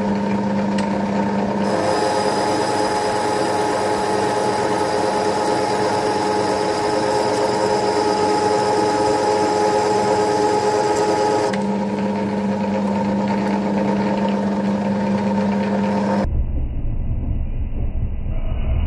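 A centre lathe running under power during screw-cutting: a steady mechanical whine made of several held tones from its gearing. Near the end the sound abruptly turns duller and more rumbling.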